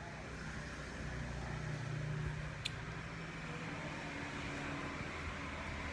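A vehicle running steadily: a low engine hum over road noise, with a single sharp click about two and a half seconds in.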